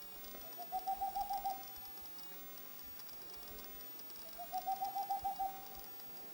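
Boreal owl (Tengmalm's owl) singing: two rapid runs of about eight soft, low hoots, each run lasting about a second, a few seconds apart.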